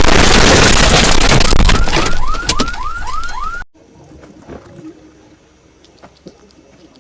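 Extremely loud, distorted explosion sound effect, the kind laid over a sneeze in ear-rape memes, with a quick run of rising chirps in its last second like a car alarm. It cuts off abruptly a little over three and a half seconds in, leaving only faint background with a few small clicks.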